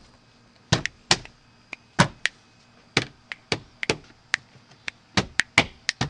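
Plastic interior side trim panel of a car's cargo area being hit over and over to seat its snap-in clips: a run of sharp knocks at an uneven pace, about three a second.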